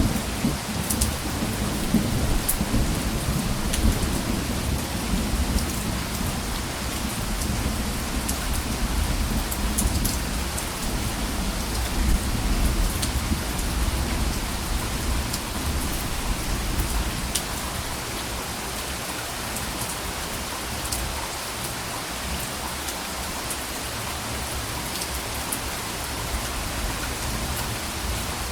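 Steady rain falling, with scattered sharp drop ticks and a low rolling rumble of soft thunder that dies away a little past halfway.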